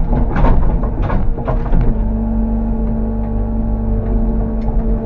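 Bobcat E85 compact excavator's diesel engine running hard and steady under load while the machine tries again to work its way out of deep mud. There are a few knocks and clunks in the first couple of seconds.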